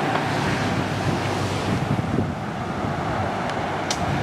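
Steady rushing noise of wind buffeting the microphone, over a low rumble of road traffic, with a brief sharp tick near the end.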